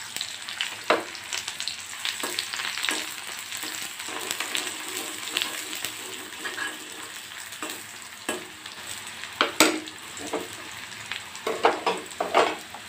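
Chopped onion sizzling in hot oil in an iron kadhai, with a steel spoon stirring and knocking against the pan. The strikes come irregularly, the loudest about two-thirds through and near the end.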